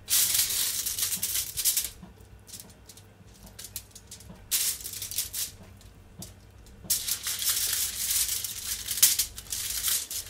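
Aluminium foil crinkling as it is handled, in three spells of crackling: one at the start, a short one in the middle, and the longest near the end.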